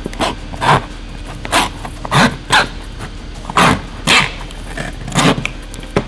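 A pointed knife blade levered and pushed through the rim of a soup can lid, cutting the can open in about nine short, irregular strokes.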